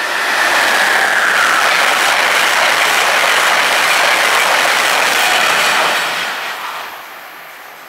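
Amtrak passenger train of stainless steel Amfleet coaches passing through the station at speed: a loud rush of wheels on rail and moving air that builds as it arrives, holds steady, then fades about six seconds in as the train recedes.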